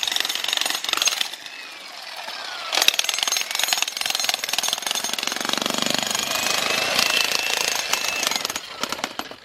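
Jackhammer rapidly pounding concrete. It stops about a second in and starts again a little over a second later.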